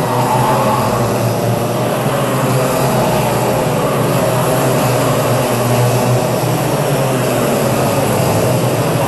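A field of two-stroke racing kart engines running together on the circuit, with several engine notes sliding up and down as the karts accelerate and lift off.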